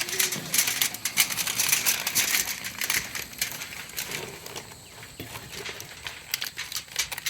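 Heavy-duty aluminium foil crinkling and crackling as its edges are folded and crimped tight to seal a food packet. The crackle is dense for the first few seconds, then thins out to scattered crinkles.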